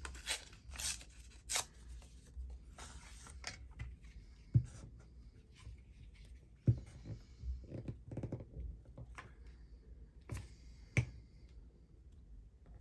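Paper scraps rustling and crinkling as they are sorted by hand, with a few light knocks against the table.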